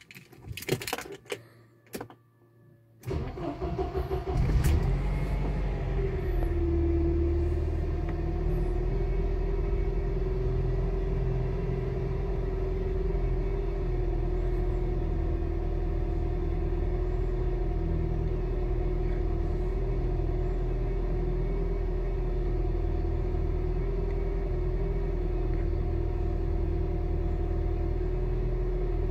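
Cold start of a Mercedes KE-Jetronic petrol engine: a few clicks, a short burst of cranking, then the engine catches about four to five seconds in and settles into a steady fast idle. The tachometer shows about 1,000–1,100 rpm, the high cold idle that the owner puts down to the old ECU.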